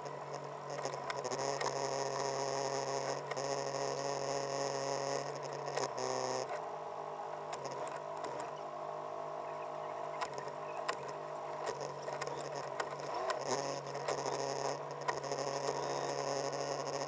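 Catamaran engine running steadily at low speed during docking. The engine note drops about six seconds in and rises again about thirteen seconds in as the boat is manoeuvred, with scattered clicks and knocks on top.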